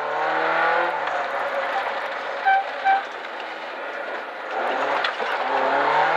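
Rally car engine at full throttle, heard from inside the stripped-out cabin, its note climbing under acceleration over steady tyre and road roar. Two short beeps sound about midway, and near the end the revs drop off and then climb again as the driver lifts and gets back on the power.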